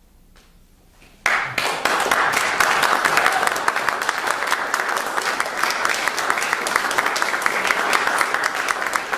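Audience applauding: after a hush, the clapping breaks out suddenly a little over a second in and keeps up as a dense, even clatter of many hands.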